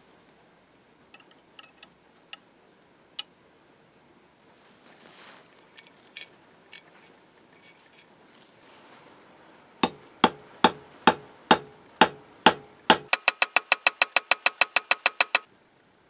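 Metal being struck by hand: a few faint clicks, then eight sharp strikes about half a second apart, followed by a quick run of lighter, ringing taps that stops suddenly.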